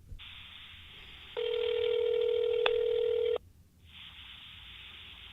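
Telephone ringback tone heard down a phone line while an outgoing call waits to be answered. One steady two-second ring sounds about a second and a half in, with line hiss before and after it.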